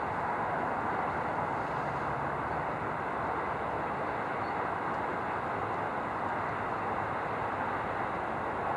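Distant LMS Stanier Black Five two-cylinder 4-6-0 steam locomotive working uphill under steam, heard as a steady roar mixed with motorway traffic noise, without distinct exhaust beats.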